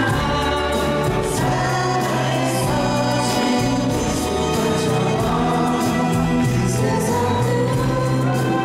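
Live pop ballad sung by several singers together in chorus over band accompaniment, with held bass notes moving under the voices.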